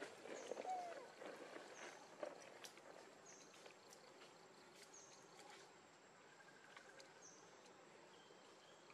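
Faint forest ambience: a steady high insect whine with short high chirps every second or two. There is some faint rustling and a few light clicks in the first two to three seconds.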